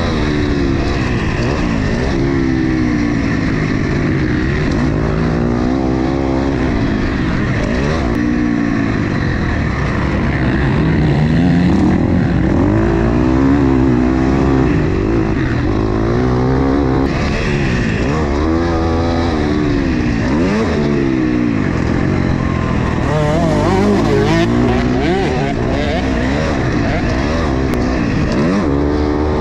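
Motocross bike engine, heard onboard, revving up and down again and again as the rider accelerates, shifts and backs off around a dirt track.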